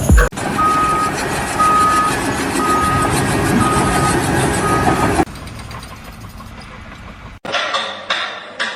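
Vehicle reversing alarm beeping five times, about once a second at one steady pitch, over loud engine noise; it stops about five seconds in, leaving a quieter steady hum, and a clatter of sharp knocks follows near the end.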